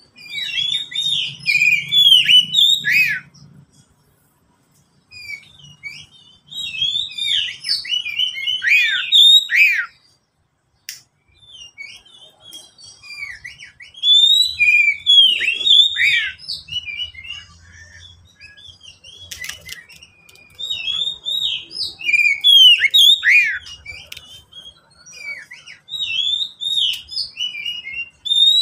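Oriental magpie-robin (kacer) singing: about five bouts of fast, varied whistles and chirps, each a few seconds long, separated by short pauses.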